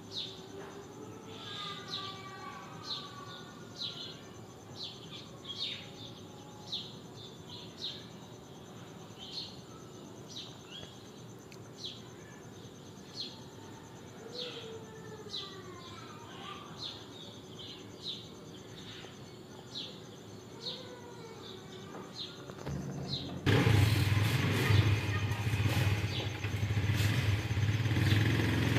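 Small birds chirping with short, high, falling chirps about once a second. About 23 seconds in, a motor vehicle engine cuts in suddenly and runs loudly, becoming the loudest sound.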